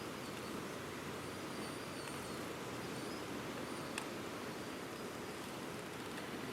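Steady rushing wind of a blizzard, with faint, high, wavering whistles and a single sharp click about four seconds in.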